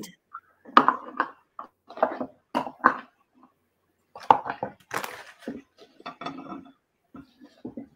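Bowls, containers and utensils clattering as they are handled and set down on a kitchen counter: a string of irregular knocks and clinks.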